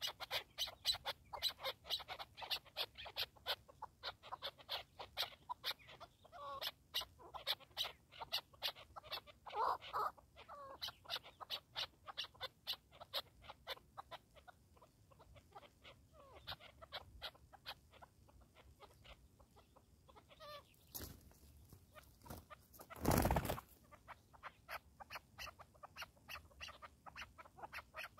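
Chukar partridges calling: a rapid, rhythmic series of short chuk notes, several a second, with a few warbled notes mixed in. The calling thins out in the middle and picks up again. About 23 seconds in, a brief loud rush of noise covers everything.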